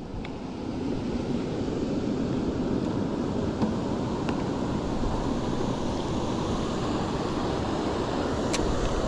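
Steady rushing noise of wind buffeting the microphone and lake water around a small fishing boat, with a few faint ticks.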